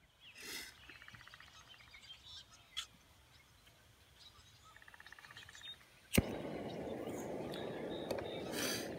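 A sharp click of the igniter about six seconds in lights a gas canister backpacking stove. Its burner then runs with a steady rushing hiss under the pot.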